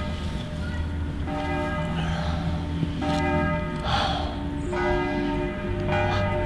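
Church bells ringing, a new stroke coming in every second or so while the earlier ones ring on.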